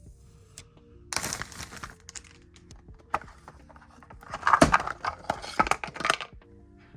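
Rustling and clattering of PC parts and their packaging being handled, in two noisy stretches with sharp clicks, the louder one about four seconds in, over steady background music.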